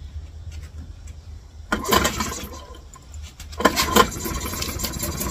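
Mariner 2.5 hp two-stroke outboard being pull-started with the choke on: a first pull about two seconds in, then on a second pull a little before four seconds in it catches and keeps running steadily.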